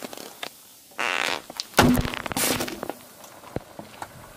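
Car tyre crushing a drink can on an inflatable ring. A hiss of liquid spraying from the burst can, then a sharp crunch just under two seconds in, followed by a low, fart-like rasp as air is squeezed out of the flattened ring.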